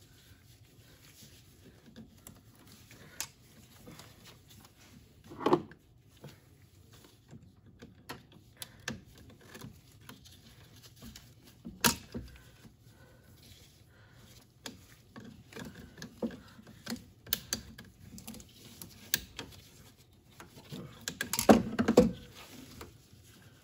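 Pliers and hands working on hoses, clamps and fittings in a truck's engine bay: scattered small clicks, taps and rattles, with a sharp click about twelve seconds in and a louder clatter of knocks near the end.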